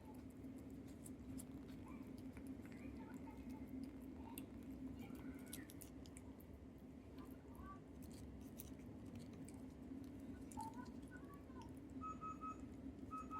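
Siamese cat licking and chewing a Ciao Churu lickable paste treat: quick, quiet, wet clicks of tongue and mouth, over a steady low hum.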